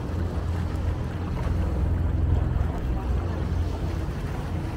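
Steady low rumble of wind buffeting the microphone, with water washing around a pedal water bike moving across the harbour.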